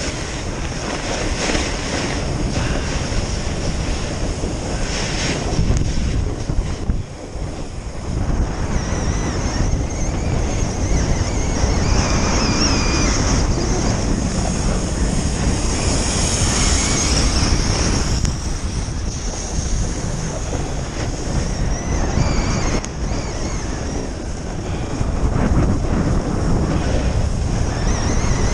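Wind buffeting the microphone of a camera sliding downhill, over a continuous hiss and scrape of edges on packed, tracked snow. It dips briefly about seven seconds in.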